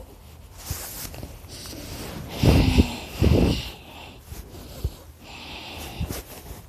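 A person snoring in sleep: quiet breathing, then two loud snores close together about two and a half seconds in, with a thin high whistle through the nose over them. The snorer puts the snoring down to extra tissue in the throat.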